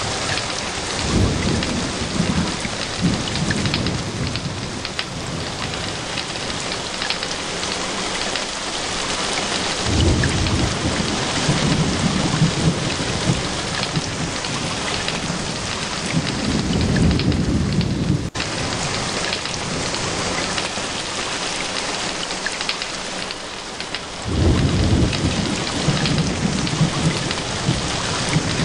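Heavy rain falling steadily in a thunderstorm, with three long, low rolls of thunder: one near the start, a longer one through the middle, and another near the end. The sound breaks off for an instant just after the middle roll.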